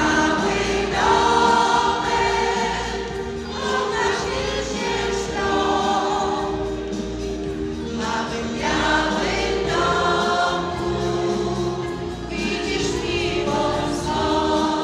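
A women's choir singing a song together, several voices at once in sustained sung phrases.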